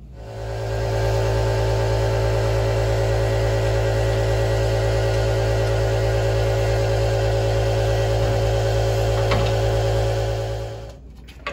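A motor running with a steady, loud low hum that holds one pitch. It starts just after the beginning and cuts off about a second before the end.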